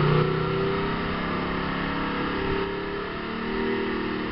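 TVR S-series sports car's engine idling just after being started, its revs easing down steadily, with a slight rise in revs near the end.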